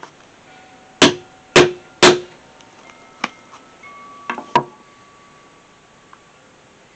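Three sharp knocks about half a second apart, then a few lighter clicks: tools and leather handled on a workbench while the snap position is marked with an awl.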